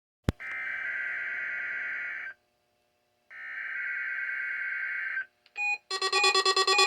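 A click, then two bursts of the EAS SAME header data tone, the buzzy digital screech that opens a NOAA Weather Radio Required Weekly Test, each about two seconds long with a second's gap. About six seconds in a louder electronic tone sound with steady pitches starts up.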